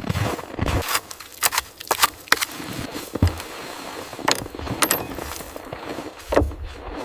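Irregular clicks, knocks and rustling of something being handled, with a few heavier thumps, over a steady hiss.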